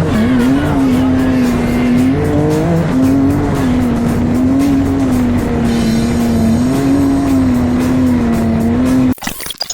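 Vehicle engine running hard at a fairly steady high pitch, the note wavering slightly up and down as the revs shift, cut off suddenly near the end.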